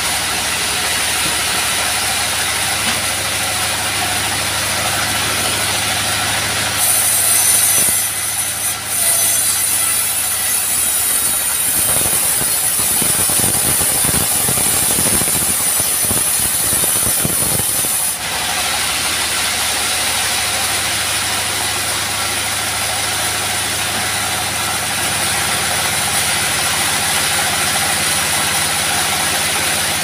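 Engine-driven bandsaw sawmill running steadily. A louder high hiss sets in about seven seconds in and stops abruptly about eighteen seconds in, with irregular low knocks over its last few seconds.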